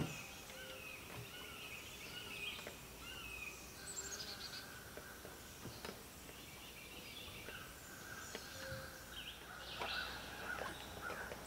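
Songbirds calling and chirping in the woods, with a few faint knocks now and then.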